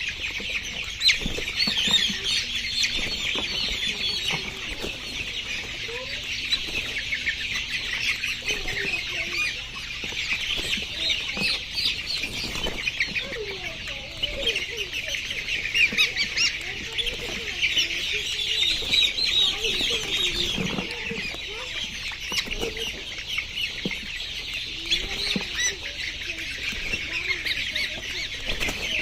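A flock of young layer chickens peeping, with many high chirps overlapping continuously and a few lower calls among them.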